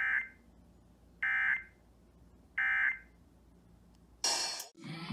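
Emergency Alert System end-of-message code: three short, identical bursts of digital data warble, about 1.3 s apart, signalling the end of the alert test. Near the end a loud burst of sound cuts in, followed by music with singing.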